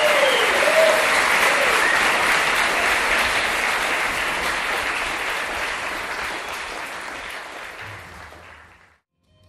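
Audience applauding, with a few whoops in the first second. The clapping dies away gradually and is gone just before the end.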